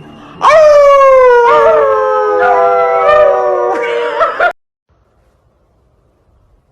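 A dog howling: one long, loud howl of about four seconds, its pitch slowly falling with small wavers, cut off suddenly.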